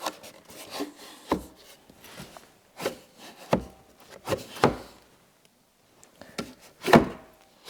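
Side mirror and bolted mount on a Jeep Grand Cherokee WJ being worked by hand: a series of irregular knocks and clunks, about seven, with short pauses between them.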